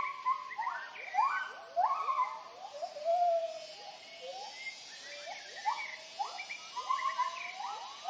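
Gibbons calling in chorus, several voices overlapping: repeated hooting notes that swoop sharply up and fall away. It is their territorial hooting call, announcing the family's presence.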